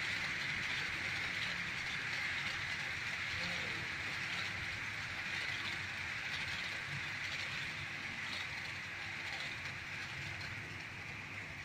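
H0-scale model train running along the track, a steady rolling, rattling whir of small wheels and motor that slowly fades as the train moves away.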